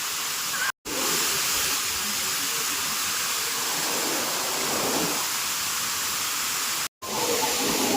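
Waterfall rushing with a steady, even roar of falling water. The sound drops out completely for an instant twice, about a second in and near the end.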